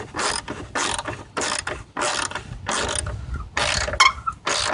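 Hand ratchet wrench clicking through repeated back-and-forth strokes, about one and a half a second, as it tightens the bolt that holds a car's headlight assembly.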